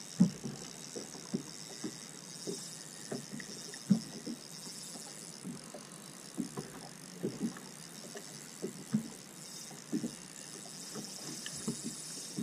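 Small waves slapping against the hull of a bass boat, soft irregular knocks about once a second, over a steady high hiss.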